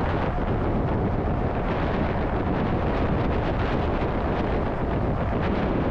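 Steady rushing wind noise and road rumble on a microphone riding along on a moving electric moped. The noise stays even throughout.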